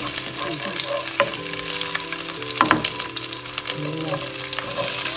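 Chopped garlic sizzling in olive oil in a nonstick frying pan, stirred with a spoon that scrapes and clicks against the pan a couple of times.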